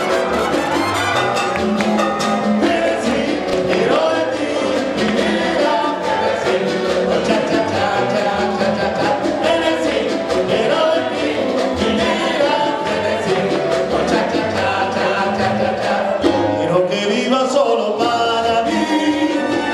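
Live Cuban dance band playing with a singer's voice over the music.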